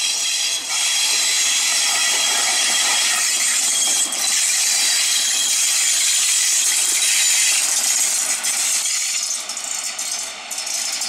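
FS E.656 electric locomotive running light past, its cooling blowers giving a loud, steady hiss with high whistling tones. Near the end the hiss fades and a quick run of wheel clicks on the rails comes through.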